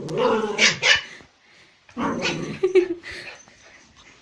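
A puppy giving two short, growly barks, the second about two seconds after the first.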